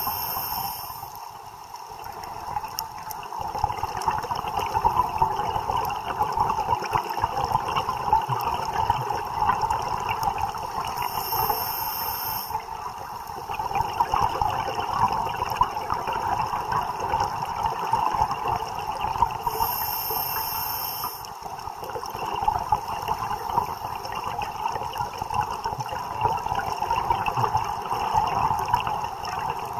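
Underwater sound of a scuba diver breathing through a regulator: a short hiss of inhalation three times, roughly eight seconds apart, with bubbling and gurgling of exhaled air in between.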